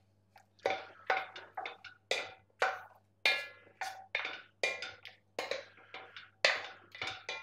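Wooden spoon knocking and scraping against the sides of an enamelled casserole pot while stirring pasta and vegetables, about two irregular knocks a second, some with a short ring.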